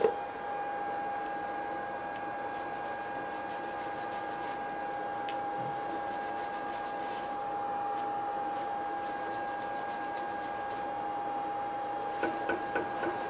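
Steady hum of a workshop machine. Over it, gloved hands rub and scrape a small metal part on the wooden workbench, with a few light knocks near the end.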